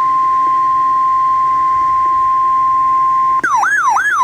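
Emergency alert tone: a single steady high pitch held for about three and a half seconds. Near the end it breaks into a fast warbling, siren-like wail of repeated falling sweeps.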